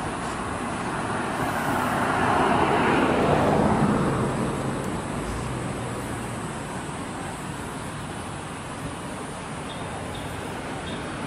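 A vehicle passing by. Its noise swells to a peak about two to four seconds in, drops in pitch as it goes away, and fades into steady outdoor traffic noise.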